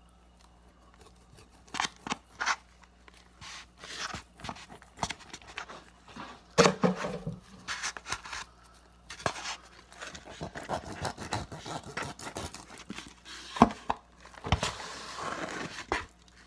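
A knife cutting a raw rack of ribs in half on a tray: irregular scraping and knocking of the blade through the meat and against the tray, with a few louder knocks.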